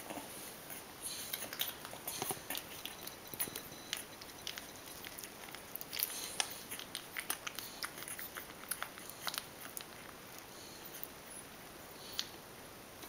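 Three-week-old puppies suckling at their mother, making irregular wet smacking and clicking sounds that come in bunches and thin out near the end.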